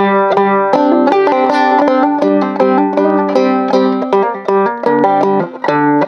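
Banjo in sawmill tuning picking a quick melody in the Hijaz mode, with a low drone note ringing under the plucked notes.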